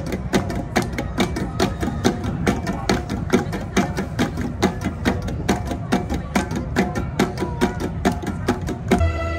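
An ensemble of flat bronze gongs (gangsa) struck by hand by kneeling players, in a quick, even interlocking rhythm of sharp metallic strikes that ring briefly. Near the end it gives way to held notes of different music.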